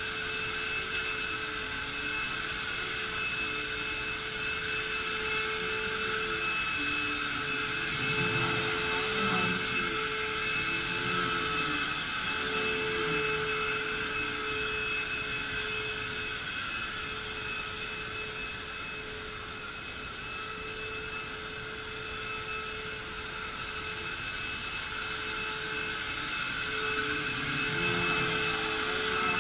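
Vacuum cleaner running steadily, its motor giving a constant high whine over a rushing hiss, with the level dipping a little for a few seconds in the middle.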